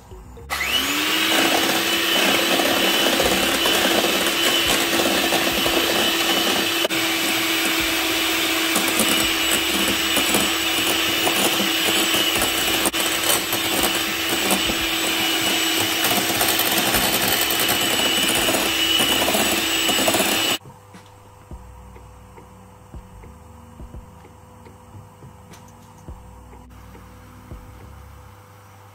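Electric hand mixer beating a milk and sugar mixture in a glass bowl: the motor spins up about half a second in, runs at a steady pitch, and cuts off suddenly after about twenty seconds. A much quieter stretch with a faint steady hum follows.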